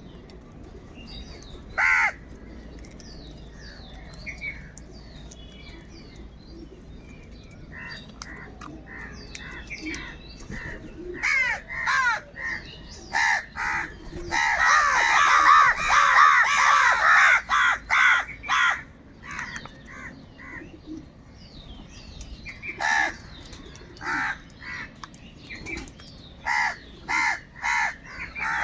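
A group of crows cawing: scattered calls at first, then a loud burst of many overlapping caws about halfway through, followed by a run of spaced single caws near the end.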